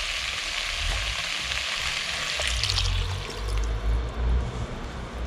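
Potatoes and onions sizzling as they fry in a cast-iron Dutch oven. About three seconds in, broth is poured in from a jug: the sizzle dies down and the lower, uneven rush of pouring liquid takes over.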